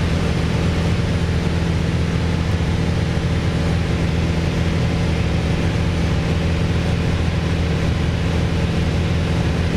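Steady cabin drone of a Piper PA-28-161 Warrior's four-cylinder Lycoming engine and propeller in level cruise, a constant low hum with no change in pitch.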